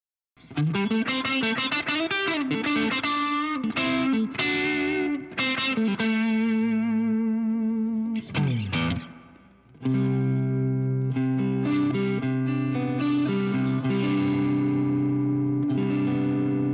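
Electric guitar driven through an MXR Duke of Tone overdrive pedal, recorded direct through a Laney Lionheart Loudpedal into Vintage 30 cabinet impulse responses. It plays a single-note lead line with string bends, then slides down about eight and a half seconds in, then lets chords ring from about ten seconds in.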